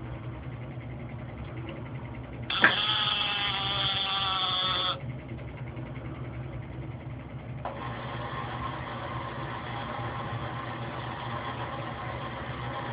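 CRS Robotics A255 robot arm's joint motors whining as the arm moves. A click about two and a half seconds in starts a loud whine that stops abruptly a couple of seconds later, and a second, steadier whine starts near eight seconds, all over a steady low hum.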